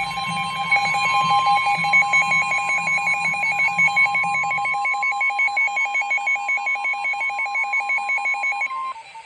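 Emergency alert attention tone: a steady tone near 1 kHz with a second tone pulsing rapidly over it, which stops just before the end, ahead of the spoken warning.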